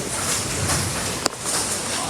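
Heavy rain and wind, a steady hiss, with one sharp click a little past halfway.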